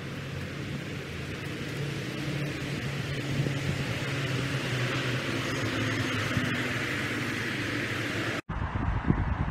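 Road traffic on a highway: tyres hissing on a wet road and a heavy vehicle's engine drone, growing steadily louder. Near the end the sound cuts suddenly to wind buffeting the microphone.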